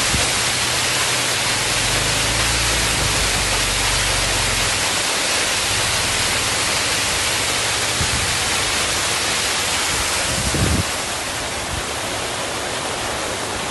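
Muddy flash-flood water pouring down a rocky slope as a waterfall: a loud, steady rush of falling water, with a low rumble under it for the first few seconds. It grows a little quieter about eleven seconds in.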